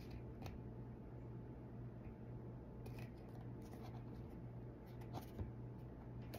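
A few faint clicks and light scrapes of small wooden craft pieces being handled and pressed together, over a steady low hum.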